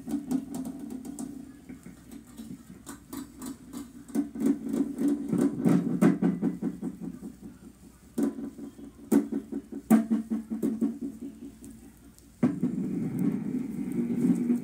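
Green slime squeezed and kneaded by hand, giving bursts of wet squelching with rapid crackling clicks and pops, broken by a few short pauses.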